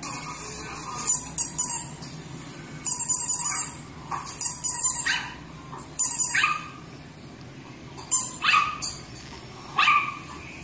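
A dog barking and yipping in about six short bursts.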